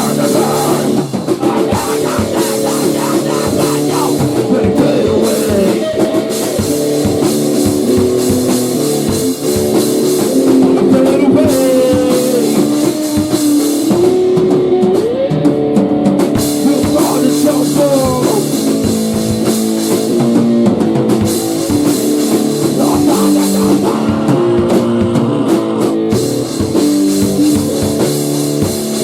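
Grunge/hardcore rock band playing: distorted electric guitar chords over a drum kit, with a few sliding guitar notes.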